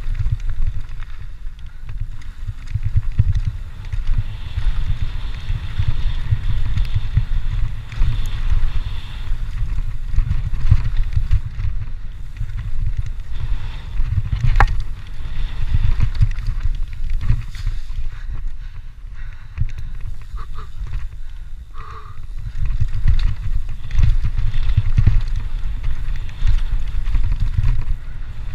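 Mountain bike riding fast down a rough dirt singletrack: tyres rolling over dirt and stones and the bike knocking and rattling over bumps, over a steady low rumble of wind on the camera's microphone. A sharp click stands out about halfway through.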